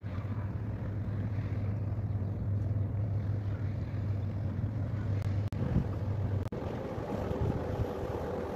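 Wind rumbling on the microphone over a steady low engine hum as a large cargo ship passes. The sound drops out briefly twice and changes character about six and a half seconds in, at a cut to other footage of a passing container ship.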